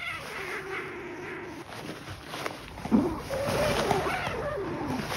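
Two kittens play-fighting in shredded toilet paper: the paper rustles and crackles, while a kitten gives long, drawn-out cries, one slowly falling at the start and another rising and falling in the second half.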